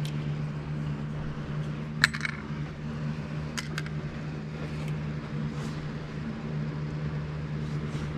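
Metal fishing lures and their hooks clinking against a plastic tackle box as they are put into its compartments: a few sharp clicks, the loudest about two seconds in. A steady low hum runs underneath.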